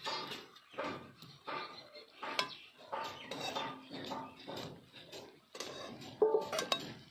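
Metal kitchen utensils clinking and scraping in a series of short, irregular strokes, like a spoon working against a pot. There are a couple of sharp clicks and a brief ringing clink near the end.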